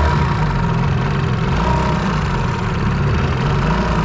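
Small outboard motor running steadily. The motor has been bogging down and stalling.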